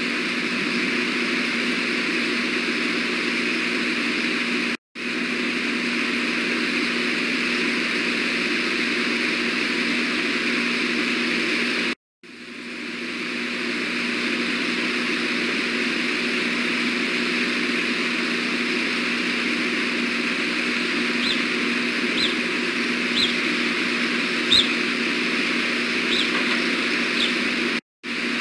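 Steady rushing background noise on an outdoor webcam microphone. It cuts out abruptly about five seconds in, again near the middle and once more near the end, fading back in each time. In the second half a few short high bird chirps come about a second apart.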